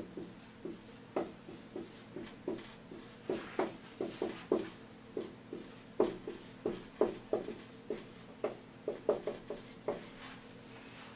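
Dry-erase marker squeaking and tapping on a whiteboard as an equation is written out: a quick run of short strokes, two or three a second.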